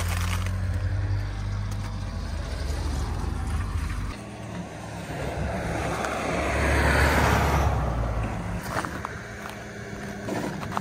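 A motor vehicle's engine hums steadily. About four seconds in the hum drops away, and a passing vehicle's noise swells to a peak a few seconds later before fading.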